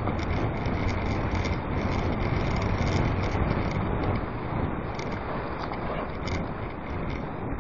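Bicycle riding fast over a rough dirt trail: steady wind rush on the action camera's microphone with the crunch of tyres and the rattle of the bike, many small knocks throughout.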